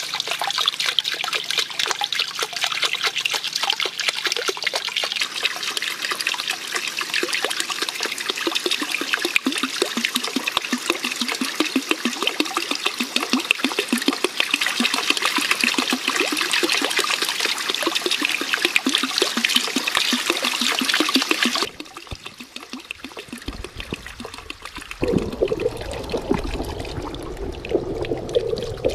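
Water trickling and splashing steadily into a small garden fish pond. It cuts off suddenly about three-quarters of the way through, and near the end a duller, muffled water sound follows, as heard from under the surface.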